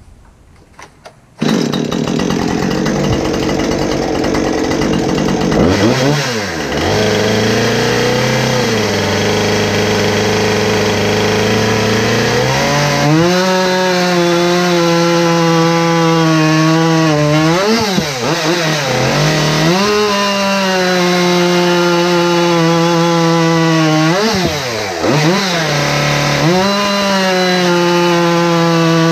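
Husqvarna gas chainsaw cutting through a log at full throttle, starting suddenly about a second and a half in. Its two-stroke engine's pitch sags under load and dips sharply several times as the chain bogs in the wood, then picks back up.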